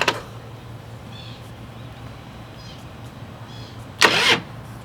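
Harley Softail starter attempt on a jump box too weak to start the engine: a low steady hum with a few faint high squeaks, then one short burst of the starter about four seconds in that does not catch.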